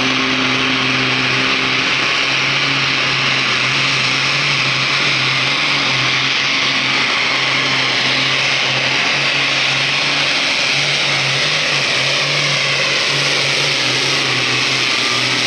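Dodge Ram pro stock diesel pulling truck at full throttle, dragging a weight-transfer sled. Its turbocharged diesel runs loud and steady with a high-pitched scream on top.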